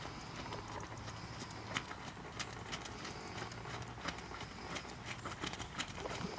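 A horse's hoofbeats at trot on a wet, muddy sand arena: a run of sharp, unevenly spaced clicks.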